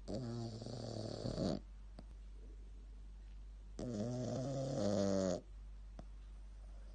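A Shih Tzu snoring: two drawn-out, rattling snores, each about a second and a half long, about two seconds apart.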